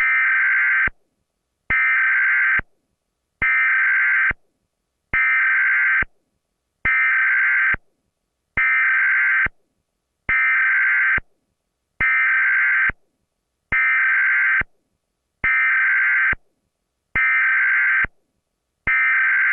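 Emergency Alert System SAME header data bursts, repeating over and over: about one short tone burst every 1.7 seconds, each starting and ending with a click, with a brief gap between bursts.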